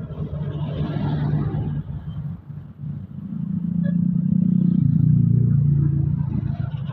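A large bus's engine running as it drives past, growing louder to a peak about five seconds in and then easing off.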